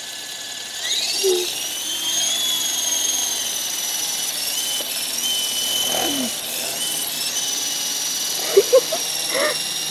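Small electric coaxial RC helicopter spooling up about a second in, its whine rising in pitch as it lifts off, then running steadily in flight with the pitch dipping and recovering as the throttle changes. Two brief sharp clicks near the end.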